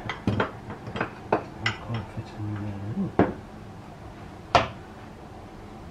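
Steel ring spanner clinking on the nut atop an engine's oil filter housing as it is fitted and worked loose: a series of sharp, separate metal clinks, the loudest about four and a half seconds in.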